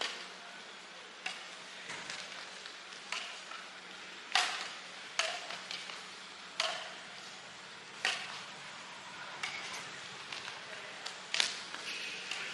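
Badminton racket strings striking a shuttlecock in a rally, a dozen sharp hits about a second or so apart, some with a short ringing ping.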